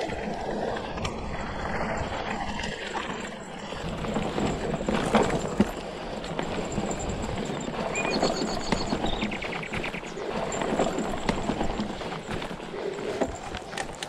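Cube Acid Hybrid hardtail e-mountain bike rolling over a dirt forest trail: tyres crunching on the ground and the bike rattling and knocking over bumps and roots, with frequent sharp clacks.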